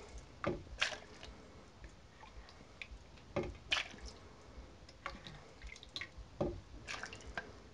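Parsnip soup being spooned into a food processor's blender jug: scattered soft plops and drips of the thick liquid, with a few light clicks of the serving spoon against the jug.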